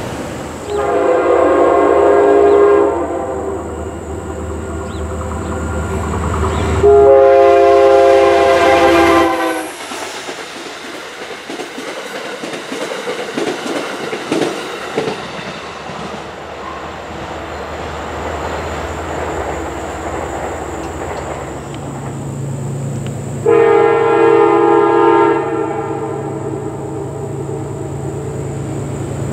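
Amtrak P32AC-DM locomotive's horn sounding three long blasts, two in the first ten seconds and one more near the end. Between the blasts comes the steady rumble and clatter of the passenger cars' wheels rolling over the rails.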